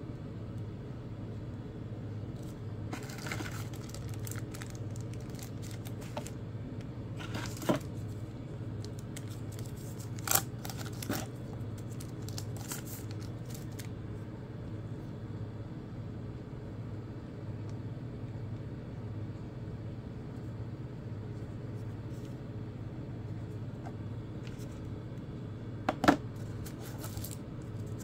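Handling of phone-box contents: the paper leaflet and plastic accessory bags rustle and crinkle, and parts are set down on the desk with a few sharp taps, the loudest about ten seconds in and a quick pair near the end. A steady low hum runs underneath.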